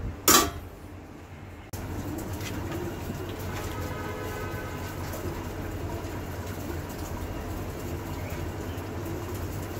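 A glass pot lid set down on a wok with a sharp knock about a third of a second in, then steady noise from the thick menudo stew simmering in the covered wok.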